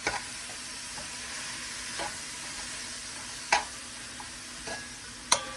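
Onions and peppers sizzling as they sauté in a frying pan, with a utensil knocking against the pan about four times as they are stirred.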